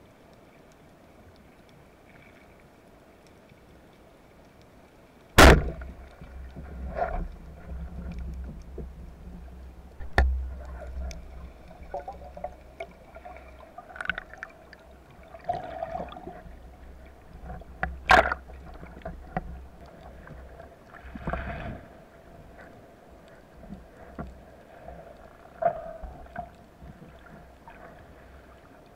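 Band-powered speargun firing underwater: one sharp, loud crack about five seconds in. It is followed by a low rumble of water with scattered knocks and clicks, and a second sharp crack about a dozen seconds later.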